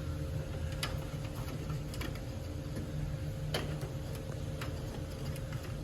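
Scattered sharp clicks and light taps of handling at an electrical breaker panel, the loudest about three and a half seconds in, over a steady low hum.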